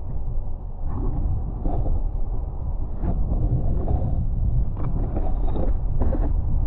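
Muffled low rumble of water against a submerged camera, with several short scraping and knocking bursts of handling noise as it moves through the leaf litter.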